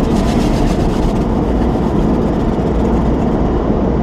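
Loud, steady rumble and rushing noise heard from inside a pickup truck's cabin, with a hiss in about the first second.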